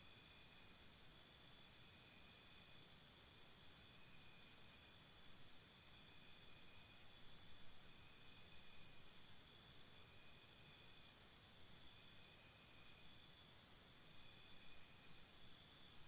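Faint crickets chirping, a high rapid pulsing of about four to five pulses a second that comes in bouts: it stops about two and a half seconds in, returns at about seven seconds and again near the end, over a faint steady hiss.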